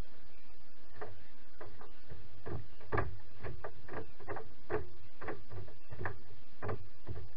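Light, irregular knocks and taps against a moored plastic canoe, starting about a second in and coming roughly twice a second.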